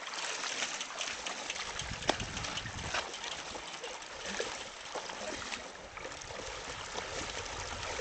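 Shallow river flowing over rocks, with feet and bicycle wheels splashing through the water as people wade across; a sharp knock about two seconds in.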